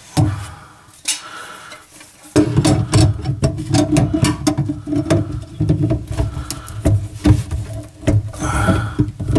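Irregular knocking, clattering and rubbing of hands and fittings at the drain trap under a bathroom sink as it is worked loose. The sound is quieter for the first couple of seconds, then a dense run of clicks and knocks.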